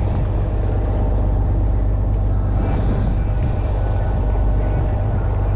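Fishing boat's engine running, a steady low drone at constant level. A brief faint hiss rises over it about three seconds in.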